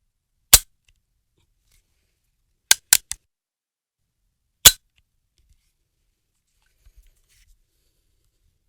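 Metallic clacks of a .50-calibre gun's action being cocked and dry-fired: a single sharp click about half a second in, a quick run of three clacks around three seconds, another single sharp click a little before five seconds, then a few faint ticks.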